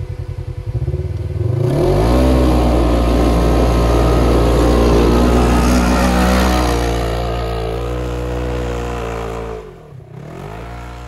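Polaris RZR side-by-side's engine going from a pulsing idle to hard revs about a second in, then running loud and steady at high revs as it drives off through snow. It drops away sharply near the end.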